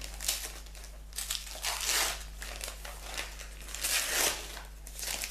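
Wrapping paper crinkling in irregular bursts as a gift-wrapped package is unwrapped by hand.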